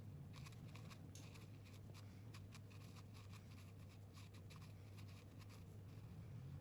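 Faint scratching with many light, irregular clicks, like small hand work on a part, over a low steady hum.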